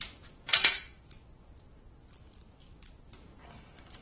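Scotch tape being handled: one short, loud rasping pull of tape about half a second in, then a few faint light clicks and taps.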